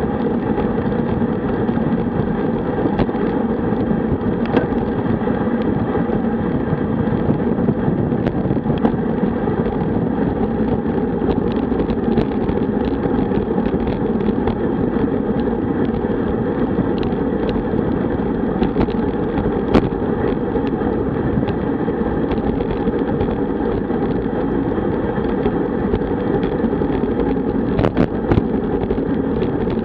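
Steady rush of wind buffeting a bike-mounted camera's microphone, mixed with road-bike tyre noise, at about 45 km/h on a road bike. Small knocks from bumps in the road come through now and then.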